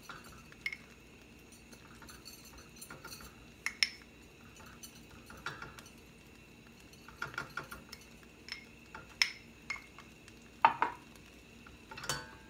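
Scattered light clinks and taps of a brush against a glass bowl and a metal platter as cornstarch is brushed onto raw chicken thighs, coming at irregular intervals with a few sharper clinks near the end.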